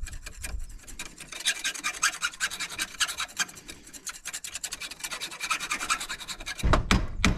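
Screwdriver scraping and scratching rapidly inside the suspension-arm pivot of a Honda TRX 500 quad, working out the rust-bound old nylon bushing. A few louder knocks near the end.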